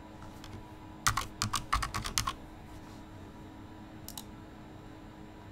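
A quick run of about eight computer keyboard keystrokes, followed a couple of seconds later by one more single click.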